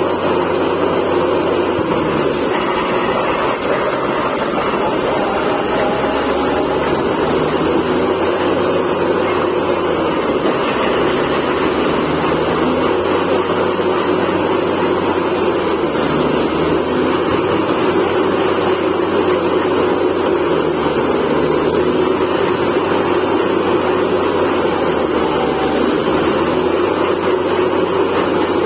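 Truck-mounted borewell drilling rig running steadily while it drills: a loud, even machine noise with no breaks.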